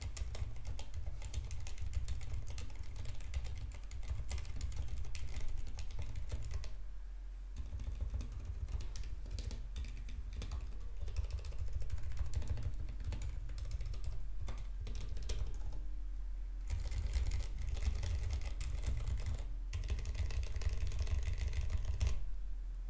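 Steady typing on a Filco Majestouch Minila-R Convertible 60% mechanical keyboard with Cherry MX Silent Red linear switches and doubleshot PBT keycaps: a fast, muted run of keystrokes. There are brief pauses about seven and sixteen seconds in, and the typing stops just before the end.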